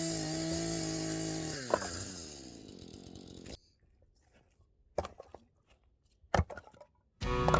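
Two-stroke Husqvarna chainsaw running at a high, steady pitch, then winding down with a falling pitch as the throttle is let off, fading out about halfway through. After a quiet stretch with a couple of short knocks, acoustic guitar music comes in near the end.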